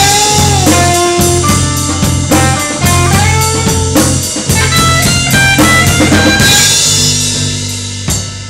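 Live rock band playing: an electric guitar line of bending, sliding notes over a bass guitar and drums. From about six and a half seconds in, the band holds a low chord under ringing cymbals and the sound slowly dies away.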